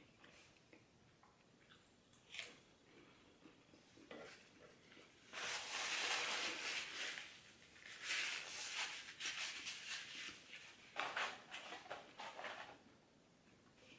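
Close-up eating and food-handling sounds from a McDonald's meal: a few soft clicks, then three crackly, rustling bursts of about two seconds each, starting about five, eight and eleven seconds in.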